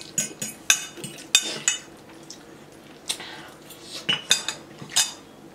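Metal forks clinking and scraping against ceramic bowls as noodles are twirled and scooped: irregular, sharp clinks, several in quick succession in the first two seconds and a few more near the end.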